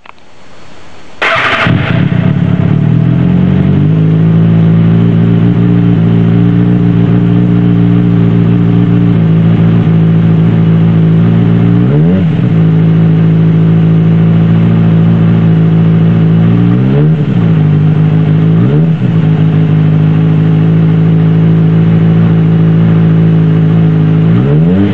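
2007 Kawasaki ZX-6R inline-four sport bike engine through a Yoshimura aftermarket exhaust. It fires up about a second in, settles to a steady idle a few seconds later, and is blipped with the throttle three times in quick short revs, with another rev at the very end.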